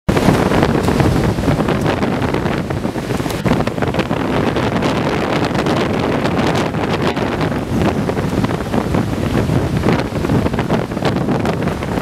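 Strong storm wind blowing hard across the microphone, a loud continuous rumble with constant gusty buffeting.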